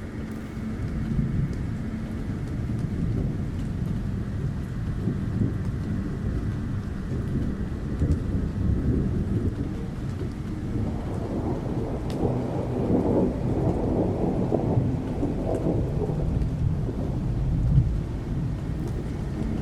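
Dark ambient soundscape of deep thunder-like rumbling under a rain-like hiss. The rumble swells and brightens a little past halfway, then settles back.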